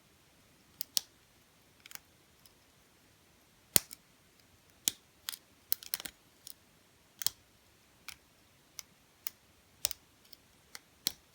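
Irregular sharp metallic clicks of a lock pick working the pin stacks of a Kasp 14040 padlock during single pin picking, clicking as pins are pushed up to set. The loudest click comes nearly four seconds in.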